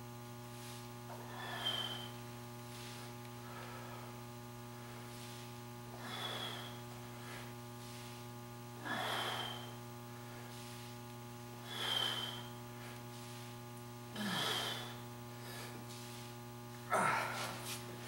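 A man's short, hard breaths, about six of them two to three seconds apart, in time with the reps of a set of heavy dumbbell shrugs, over a steady electrical hum.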